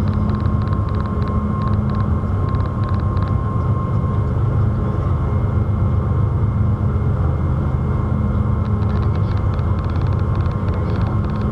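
Ferry's engines heard inside the passenger cabin as a steady low drone with a constant hum on top. A faint rapid ticking comes and goes over it in the first few seconds and again near the end.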